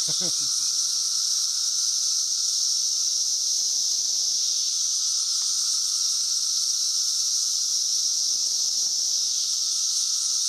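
Dense chorus of 17-year periodical cicadas, a steady, unbroken high-pitched drone that the filmer calls deafening.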